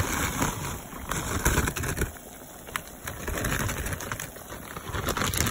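Frozen diced potatoes tipped into a pot of boiling water with carrots and tomatoes: splashing with a few sharp knocks, over the steady bubbling of the boil.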